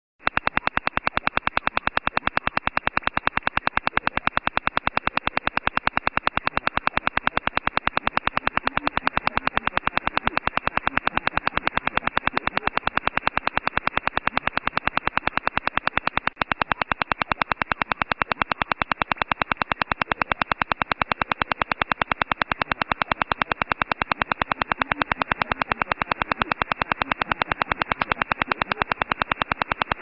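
The 'Russian Woodpecker': the Soviet Duga over-the-horizon radar's pulsed signal heard through an HF shortwave receiver. It is a rapid, evenly spaced tapping that repeats without a break, with the thin, band-limited sound of radio audio.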